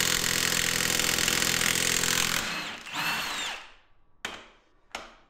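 Milwaukee 2864-20 M18 Fuel 3/4-inch high-torque cordless impact wrench hammering steadily on a 3.0 Duramax head bolt for a couple of seconds. Then comes a brief whine that rises and falls as the bolt breaks loose and the gun spins free and winds down. Two short knocks follow near the end.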